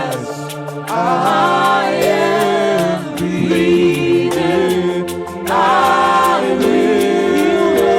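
Worship team singing a slow gospel worship song in long held phrases over sustained backing chords, with a light ticking beat.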